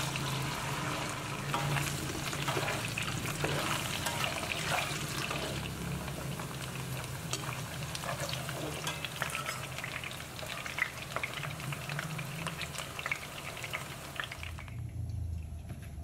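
Potato chunks frying in shallow oil in a stainless steel wok, sizzling steadily, with the clicks and scrapes of a spatula and a slotted skimmer stirring them against the pan. The sizzling stops abruptly near the end.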